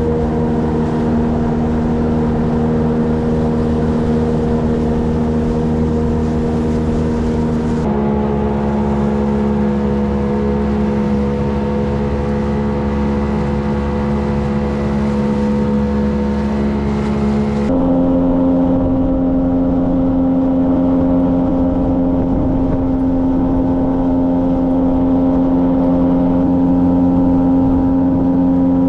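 Boat engine running at a steady speed, a continuous drone whose pitch jumps abruptly to a new steady level twice, about 8 and 18 seconds in.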